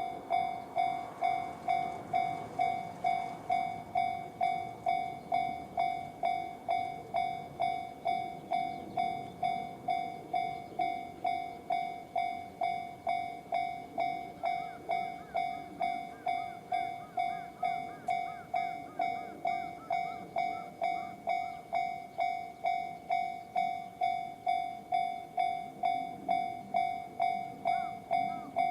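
Electronic warning bell of a Japanese railway level crossing, in the JR standard tone, striking evenly about one and a half times a second, each strike dying away before the next.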